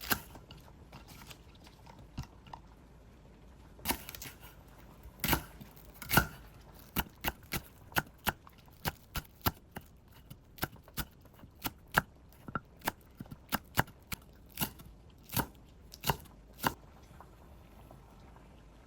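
Sharp knocks and clicks from kitchen food preparation, irregular at first and then about two a second through the middle.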